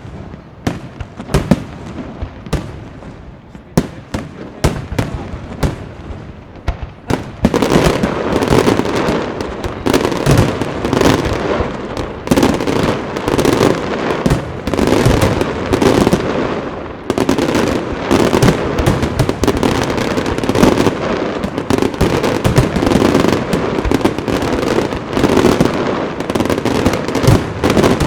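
Aerial fireworks display: scattered shell bursts with sharp bangs, then from about seven seconds in a dense, louder barrage of rapid bangs and crackle that keeps up before dying away at the end.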